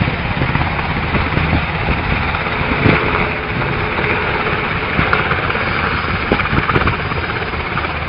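Helicopter flying low and climbing away, its rotor and engine noise loud and steady throughout.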